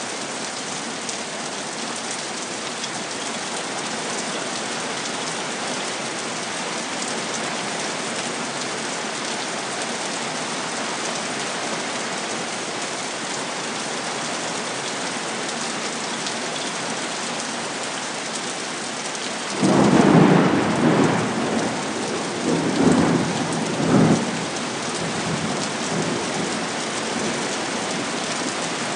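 Steady heavy rain hissing down, broken about two-thirds of the way through by a sudden crack of thunder that rolls on in a few loud rumbles for several seconds before the rain alone returns.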